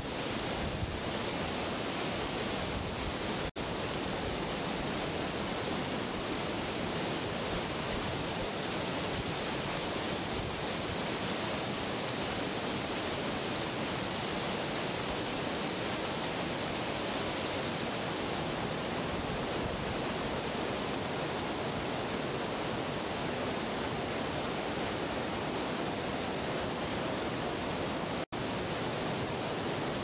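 Steady rushing of a 12-metre, two-tier mountain waterfall: falling water crashing onto rock. The sound cuts out for an instant twice, a few seconds in and again near the end.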